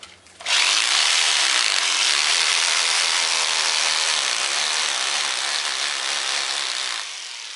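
Rotary hammer drill boring an 8 mm plug hole into a brick wall, the drill held tilted slightly upward so the bit won't slip off the brick into the joint. It starts about half a second in, runs steadily and stops near the end.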